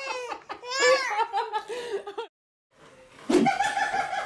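Two babies laughing: high-pitched giggles and belly laughs in quick pulses, stopping about two seconds in. After a short silence, a sudden thump.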